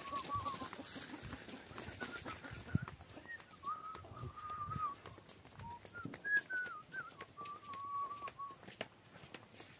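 Whistling: a thin, wavering tune in several phrases of one to two seconds each, with light footsteps on a dirt path.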